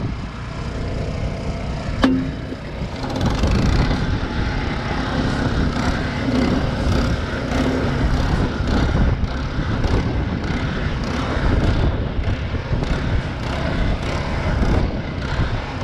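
Small gasoline engine of a concrete curbing machine running steadily, with wind noise on the microphone. A single sharp clack about two seconds in.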